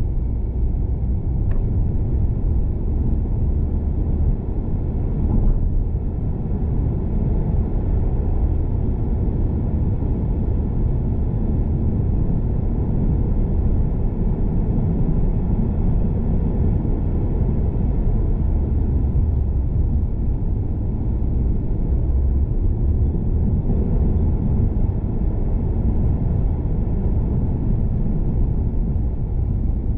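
Car driving, a steady low rumble of road and engine noise.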